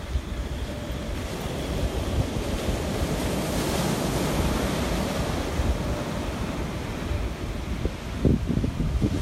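Atlantic surf breaking and washing up a sandy beach, a steady rush with one wave crashing louder about four seconds in. Wind buffets the microphone with low rumbles near the end.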